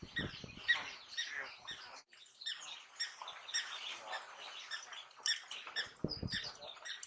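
African wild dogs twittering, a pack's quick, high-pitched chirping calls overlapping continuously as they feed at a kill. A brief low rumble comes about six seconds in.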